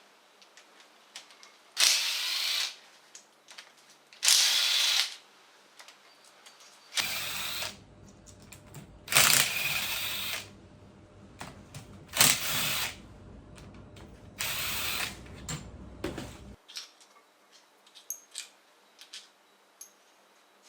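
A cordless power driver runs in six short bursts, a couple of seconds apart, spinning out bolts from the engine cases. Small clicks come between the bursts.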